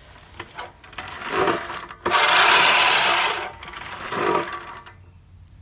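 Spear and Jackson push cylinder mower's spinning reel blades whirring and rasping against the cutting blade as it is pushed over grass, in three spurts, the longest starting about two seconds in. It goes quiet near the end.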